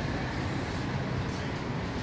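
Steady street noise with a low rumble of passing traffic.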